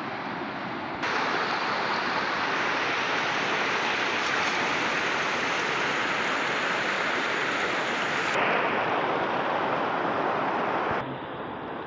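Shallow mountain river rushing over stones and boulders: a steady water noise that jumps louder about a second in and drops back near the end.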